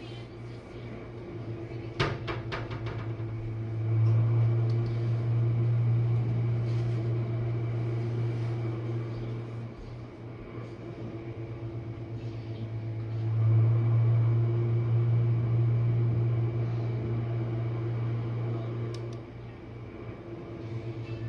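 Jenn-Air dishwasher running its main wash: a steady low pump hum that swells louder and eases back twice, with a quick rattle of clicks about two seconds in.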